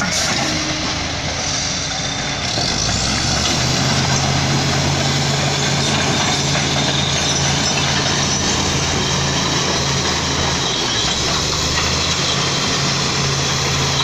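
Heavy diesel engine running steadily at close range, its low drone strengthening about three seconds in, with a brief high rising whine at that point.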